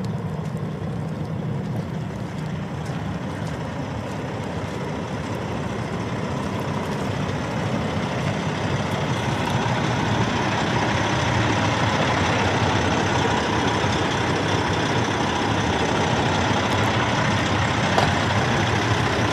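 Cummins diesel engine of an International ProStar truck tractor idling steadily, growing louder about halfway through.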